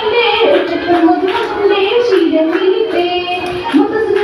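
A girl singing a Mappilappattu (Mappila song) solo into a microphone. Her voice holds long notes that bend and waver in pitch, without a break.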